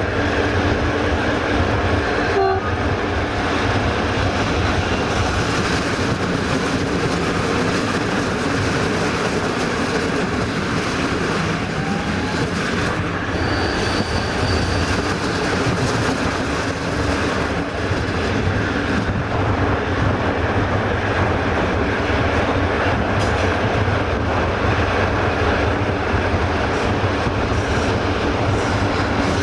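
Passenger train coach running at speed: a steady, loud rumble of wheels and running gear on the rails, heard from the coach's window.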